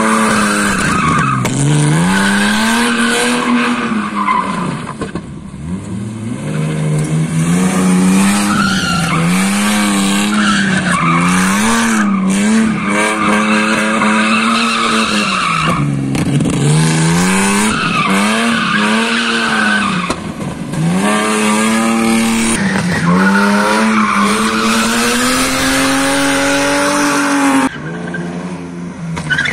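BMW E36 drifting in circles on tarmac: the engine is held high and its revs rise and fall every second or two, with tyres skidding and squealing throughout. The revs drop off briefly a few times, most sharply shortly before the end.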